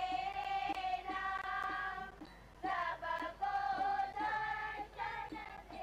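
Singing: a high voice holding long, drawn-out notes, moving from one pitch to the next about once a second.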